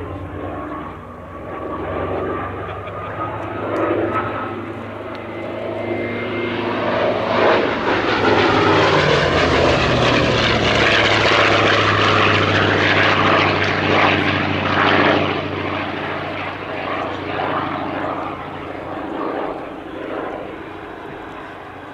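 Hawker Fury ISS's Bristol Centaurus 18-cylinder sleeve-valve radial engine on a low flypast. The engine note swells as it approaches, is loudest near the middle, then drops in pitch and fades as the fighter passes and climbs away.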